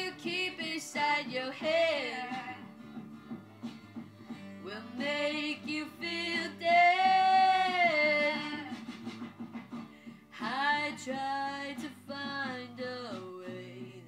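A woman singing a slow song over guitar accompaniment. She sings three phrases with pauses between them, and the middle phrase ends on a long held note.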